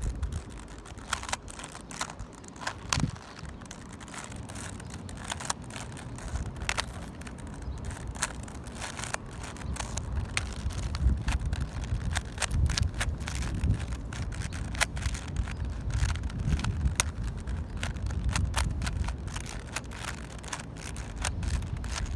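3x3 puzzle cube being turned by hand, its layers clicking in quick irregular runs, over a low rumble that grows louder in the second half.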